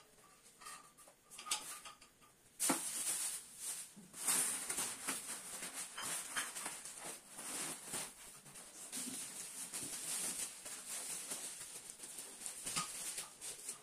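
Cardboard sheets, foam packing and plastic wrap rustling and crinkling as a boxed gaming chair is unpacked by hand, in uneven bursts that grow busier after the first few seconds.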